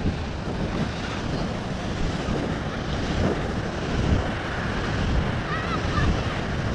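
Wind buffeting the microphone in uneven low gusts, over the steady hiss of ocean surf breaking on a sand beach.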